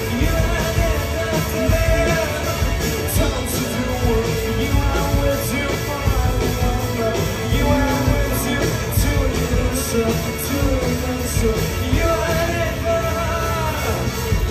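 Rock band playing live through a club PA: electric guitars, bass and drums, with a male voice singing into the microphone.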